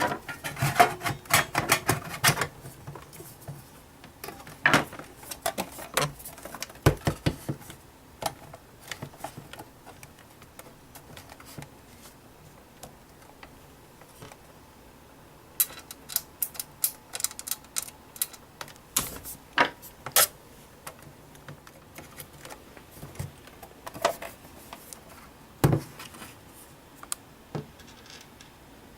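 Apollo DVR's lid being closed and its cover screws screwed back in: clusters of sharp clicks and taps, densest in the first couple of seconds and again for several seconds from about halfway through.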